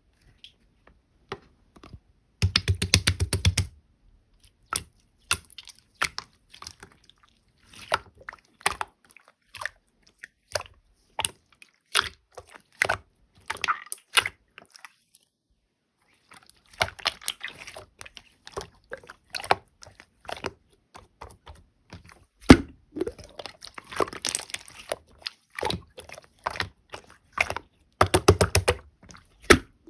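Hands squishing and pressing slime: scattered wet clicks and small air-bubble pops, with two dense runs of rapid crackling, one a few seconds in and one near the end.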